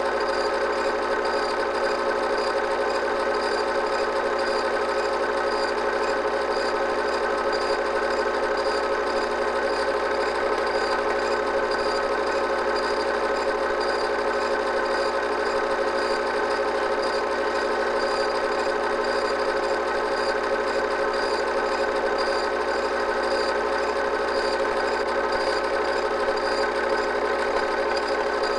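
8mm film projector running: a steady mechanical whirr and hum with several held tones, unchanging throughout.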